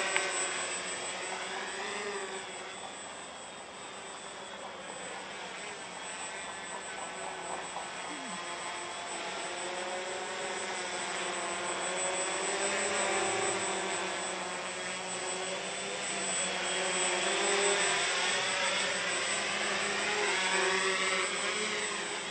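Walkera Hoten-X quadcopter's electric motors and propellers whining, the pitch wavering up and down as the throttle changes. It gets louder from about halfway through.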